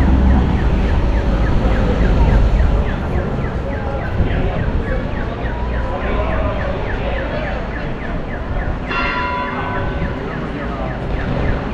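Town street ambience: a vehicle's low rumble in the first few seconds, then a run of short, evenly repeated high falling notes at about three or four a second, and a brief tonal sound about nine seconds in.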